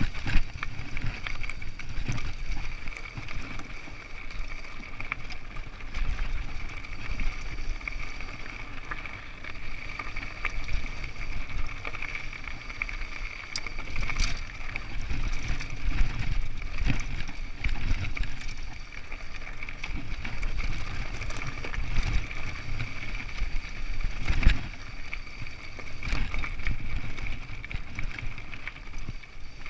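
Mountain bike rolling down a rocky trail: a low rumble with rattles and sharp knocks as the wheels go over stones, over a steady high-pitched buzz.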